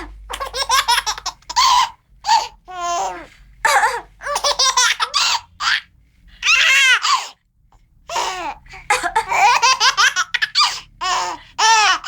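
A two-month-old baby laughing in repeated bursts of cackling laughter, each burst falling in pitch, set off by the sound of someone coughing.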